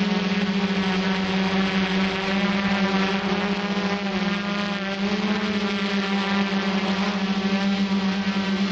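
RC quadcopter's electric motors and propellers humming steadily at a high buzz. The pitch dips slightly about four seconds in and rises again a second later.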